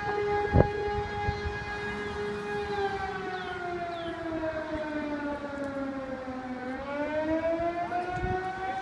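Outdoor tornado warning siren sounding a steady tone; its pitch sags slowly in the middle and climbs back near the end. A sharp knock about half a second in.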